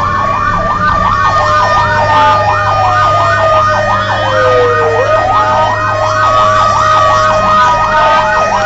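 Fire truck sirens heard from inside the cab. A fast yelp sweeps up and down about three times a second over a slow wail that rises and falls, with the truck's engine running underneath.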